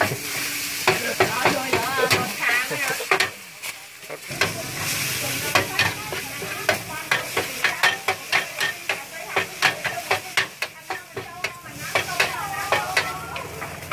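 Metal spatula scraping and clacking repeatedly on a large flat steel pan as rice pin noodles with bean sprouts are stir-fried, over a steady sizzle of frying.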